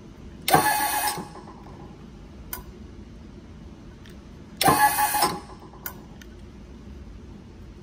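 A 12-volt DC hydraulic pump unit's motor and pump are run twice in short bursts of under a second, about four seconds apart, with a light click shortly after each. Each burst pushes pressure up against the pump's relief valve while the maximum pressure is being set.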